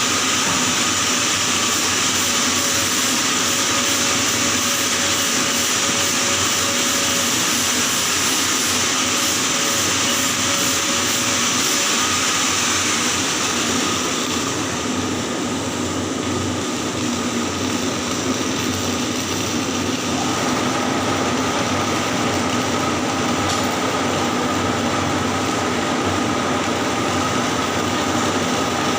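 Arc welding on pipe in the 6G position: a steady, continuous hiss that thins in its highest part about halfway through.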